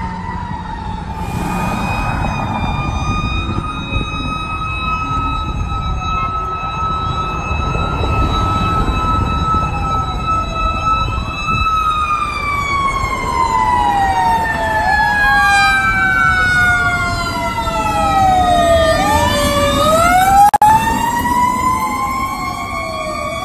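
Sirens of responding fire trucks, among them the Montgomery County Fire and Rescue Tower 712 aerial ladder truck. One siren holds a steady high pitch, then falls slowly and rises again late on, while another wails up and down over it. The pitch swings sharply and the sound is loudest as the ladder truck passes close, near the end.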